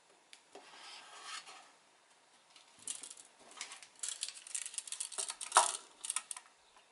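Scuffs and knocks of a wooden subwoofer enclosure being handled, then a steel tape measure's blade rattling and clicking as it is drawn out, with one sharp click about five and a half seconds in.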